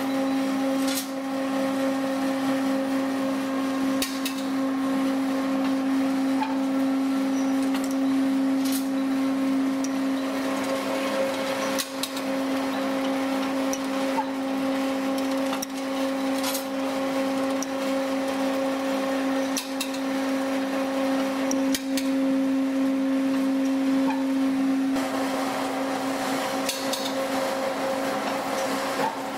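Noodle-making machine running: a steady motor hum with a constant tone, with sharp clacks every few seconds from its rollers, cutter and moving parts.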